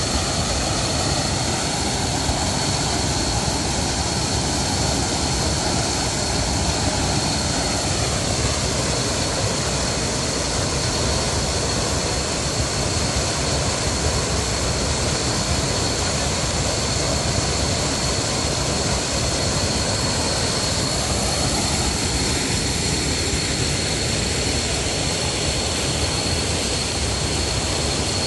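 Steady, loud rush of falling water, such as a spring-fed waterfall or cascade pouring down, with a thin steady high tone over it.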